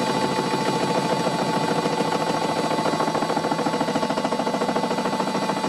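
Old Karger lathe driving an 80 mm indexable face mill with only two of its six inserts fitted through a facing cut on a metal block. It is a steady machine run with a rapid fine pulsing and a steady whine. With two inserts the cut is rougher and not as nice as with all six.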